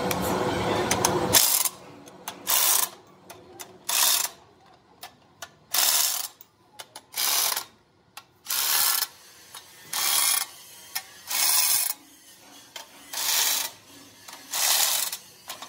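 Corded electric impact wrench running on flange-bolt nuts in short bursts of under a second each, about ten in all, with small metal clicks as the socket is moved between nuts. A longer continuous run at the start cuts off about a second and a half in.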